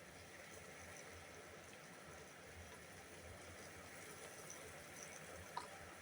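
Faint, steady rain with scattered small drops, and one sharp tick about five and a half seconds in.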